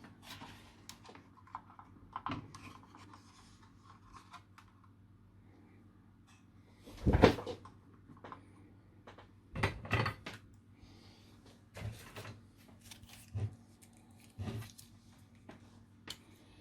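Scattered knocks and taps of hands and tools at a workbench while soldering components onto a small circuit board held in a vise, the loudest about seven seconds in and a cluster around ten seconds. A faint low steady hum runs underneath.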